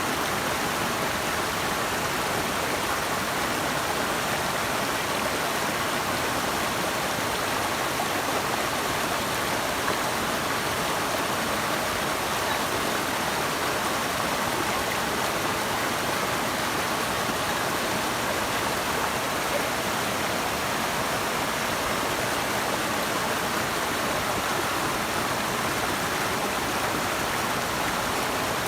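Running water rushing steadily, an unbroken even hiss and roar of a river or falls.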